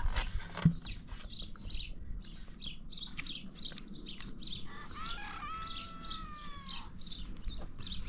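Birds chirping repeatedly in short high notes, with one longer drawn-out call from about five to seven seconds in.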